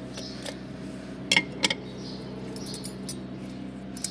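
Small steel valve parts of a Copeland compressor's valve plate clinking as they are picked off and handled: two sharp metallic clicks about a second and a half in and a lighter tick near the end, over a steady low hum.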